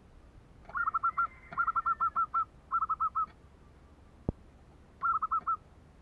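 Zebra dove (merbok) giving its rapid stuttering cooing call, the 'kerok': four bursts of quick, evenly spaced notes, a short pause between each. A single sharp click falls between the third and fourth bursts.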